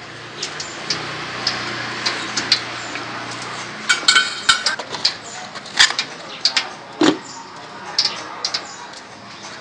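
Metal utensils clinking and knocking against pots and dishes in scattered taps, with a brief ringing metallic rattle about four seconds in and a duller, heavier knock about seven seconds in.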